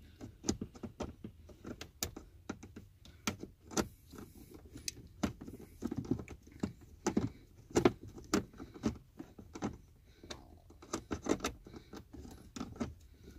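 Irregular small clicks and metallic taps of a Phillips screwdriver turning a screw out of the plastic dash trim below the stereo bezel.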